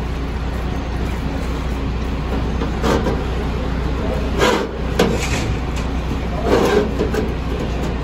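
A rag scrubbing and sloshing a metal compressor valve plate in a shallow tray of washing liquid, with a few louder swishes in the middle, over a steady low hum.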